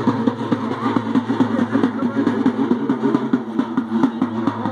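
Drums beaten in a fast, steady rhythm, about six strokes a second.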